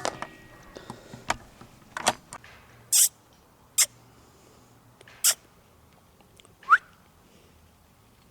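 Rats squeaking: a string of short, sharp squeaks about a second apart, one rising in pitch near the end, with a sharp click at the very start.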